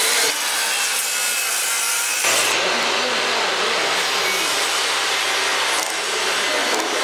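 Circular saw cutting through a wooden board, a dense rasping noise. About two seconds in, the sound changes abruptly to a different steady noise with a low hum underneath.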